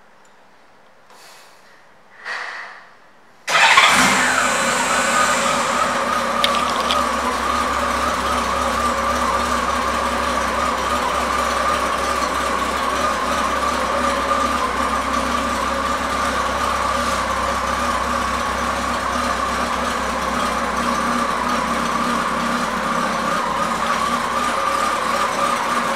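1998 Honda Gold Wing SE's 1520 cc flat-six engine being started: after a few quiet seconds it fires up suddenly about three and a half seconds in, briefly louder, then settles into a steady idle.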